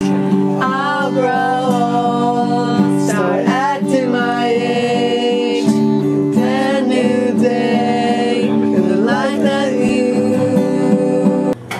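A song with a singing voice over guitar, stopping abruptly near the end.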